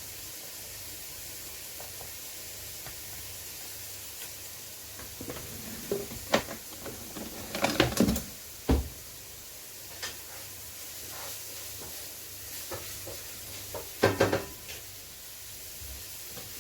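Onions, tomato sauce and spices frying in oil with a steady sizzle while a utensil stirs them in the pan. Clusters of scrapes and knocks against the pan come about six to nine seconds in and again around fourteen seconds.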